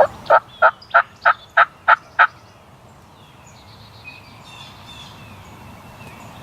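Wild turkey gobbler gobbling once: a fast, rattling run of about eight notes over two seconds. Small birds chirp faintly afterwards.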